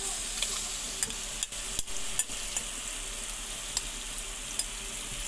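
Marinated meat going into a pot of frying onion and spice masala: a steady sizzle, with scattered clicks and scrapes of a steel spoon against the metal bowl and pot.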